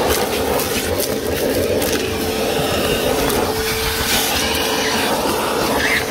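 DeWalt 9-gallon, 5 hp wet/dry shop vacuum running steadily, its motor giving a steady whine over the rush of air, with scattered clicks and rattles mixed in.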